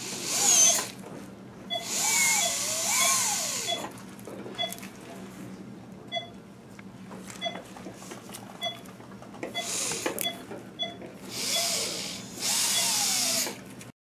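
Low-speed dental handpiece with a rubber prophy cup polishing a dog's teeth, run in about five short spurts of high hiss and wavering whine with quieter gaps between.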